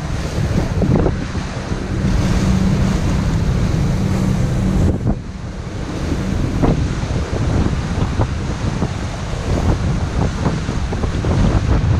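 Wind buffeting the microphone on a motorboat under way, over rushing water and the boat's engine. A steady engine hum is heard through the first five seconds or so.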